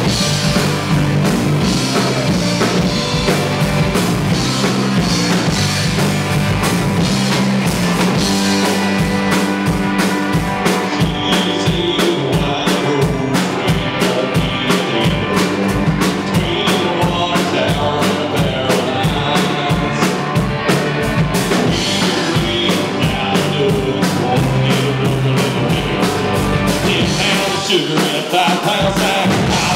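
Live rock band playing loud: electric guitars over a drum kit keeping a steady beat.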